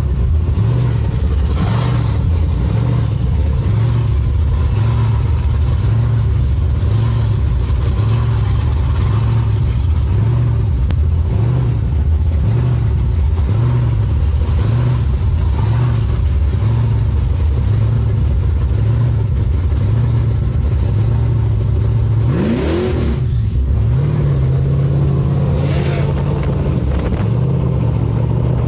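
Car engine running under load. It pulses evenly, revs up with a rising pitch about 22 seconds in, then holds a steadier note.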